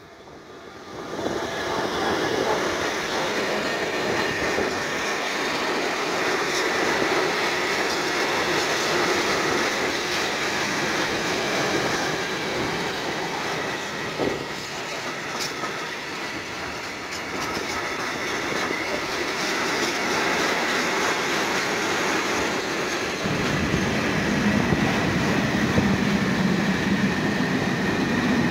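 Freight train passing close by behind an electric locomotive: a steady, loud rush of steel wheels on the rails with the clatter of the wagons rolling past. The sound comes in at the start and swells over the first second or two as the train reaches the camera.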